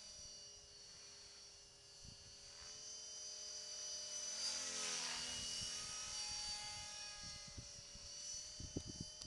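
Esky Belt CP V2 electric RC helicopter flying at a distance: a faint, steady whine of motor and rotor whose pitch wavers as it manoeuvres, loudest about halfway through. Low wind thumps on the microphone near the end.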